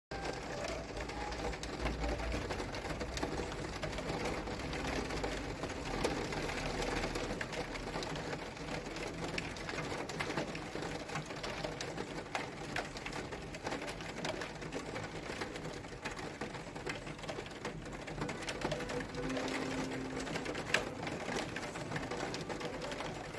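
Steady rain, a dense patter of many small drop ticks, with a television playing faintly underneath.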